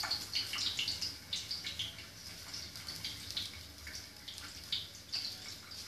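Boiled eggs frying in hot oil inside a closed pressure cooker, the oil sizzling with irregular crackles and pops, thicker in the first second or two and sparser after.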